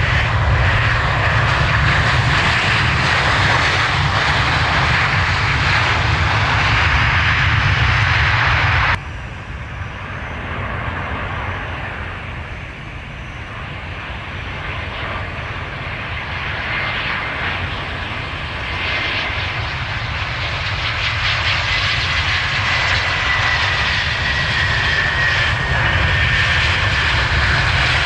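Airliner jet engines running loud on the runway close by. The sound cuts off abruptly about nine seconds in, then another airliner's engine noise builds up again, with a thin whine slowly falling in pitch near the end.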